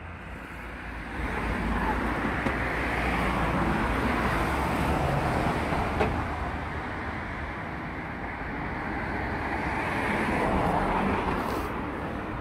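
Road traffic passing: a broad hiss of vehicles that builds over the first couple of seconds, eases off in the middle, and swells again near the end, over a steady low rumble.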